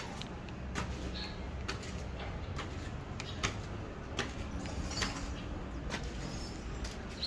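Irregular light knocks and clicks, about a dozen spread unevenly, over a steady low rumble.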